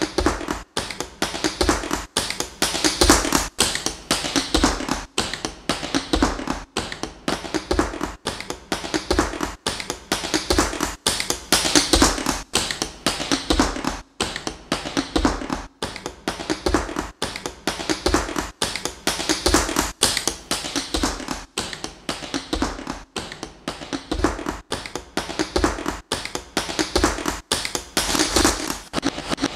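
Industrial electronic track: a dense loop of clattering taps and noise with frequent short cut-outs, its pattern repeating about every two seconds.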